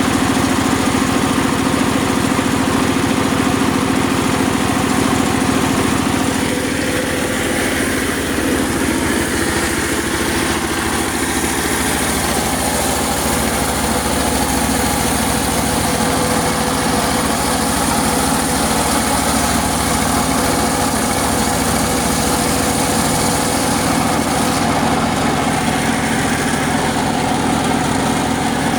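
Serkel circular-saw sawmill machine running steadily with a constant engine-like drone, changing slightly about six seconds in.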